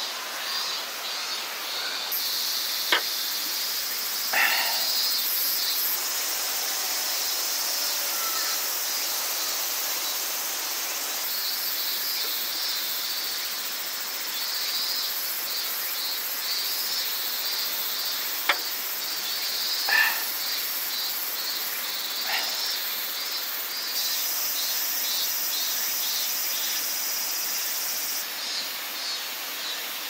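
Forest ambience: insects chirring in a high, pulsing rhythm over a steady hiss, with a couple of sharp clicks and a few short chirps.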